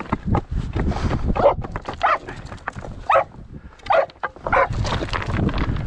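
Mink-hunting dogs barking in short, sharp calls, about five of them a half to one second apart, at a mink hidden among lava rocks, with scattered clicks and knocks of stones as they dig.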